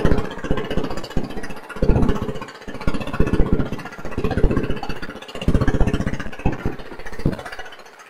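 Small fishing boat's gasoline engine running under way, a rapid, loud firing chatter whose loudness swells and falls every second or so.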